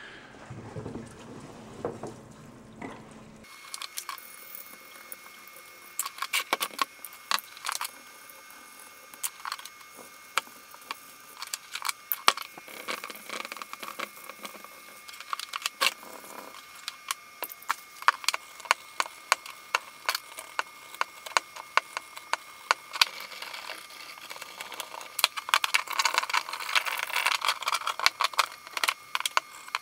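Parts from a Dayton 2 hp electric motor being washed by hand in a parts-washer sink: frequent clinks and knocks of the metal housing and end cover against the basin, with wet scrubbing, over a faint steady whine. Near the end the wet hissing and splashing grows denser.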